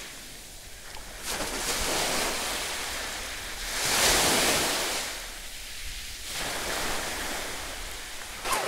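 Sea surf washing onto a shore, swelling and falling back in surges every couple of seconds, with wind on the microphone.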